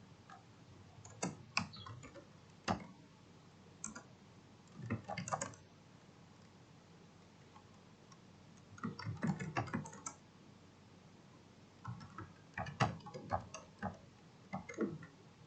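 Typing on a computer keyboard in several short bursts of rapid key clicks, with pauses of a few seconds between them.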